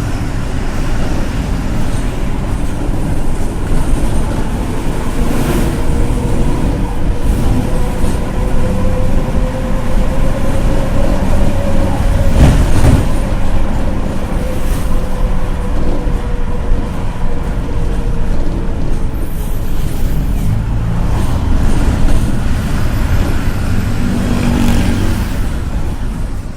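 Mercedes-Benz bus at high speed: a wheel bearing sings a steady whine over the rumble of the road, rising slightly in pitch toward the middle and sinking back. This is typical of a worn wheel bearing, a fault that is harmless to the bus. A few knocks come through, the strongest about halfway.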